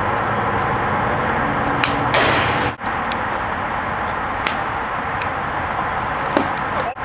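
Steady open-air hiss on a camcorder microphone at a baseball field, broken by a few short sharp pops and a brief dropout a little under halfway through. The loudest pop comes near the end, just after the pitcher's delivery: a fastball popping into the catcher's mitt.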